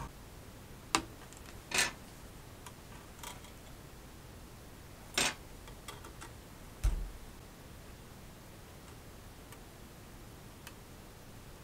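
Light handling noises of a circuit board and a thin jumper wire on a workbench: a few scattered sharp clicks and two short scrapes, with a dull low knock about seven seconds in. Otherwise quiet room tone.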